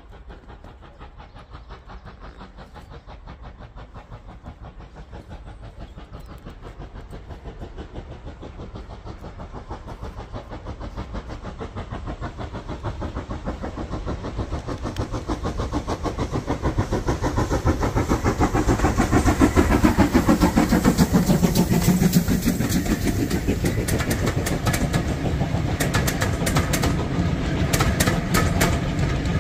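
Steam locomotive hauling a passenger train approaches and passes, its fast exhaust beats growing steadily louder and peaking about two-thirds of the way through, with a falling pitch as it goes by. Near the end the coach wheels click over the rail joints.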